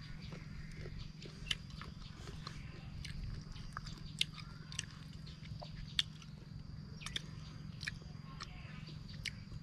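Crisp biting and chewing of raw, unripe green ambarella fruit, with sharp crunches at irregular intervals.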